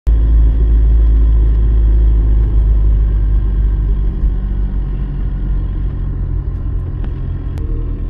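Car driving along a town street: a steady low rumble of engine and road noise.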